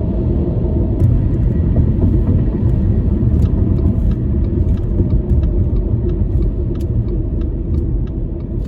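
Steady low road and engine rumble heard from inside a car cabin while driving.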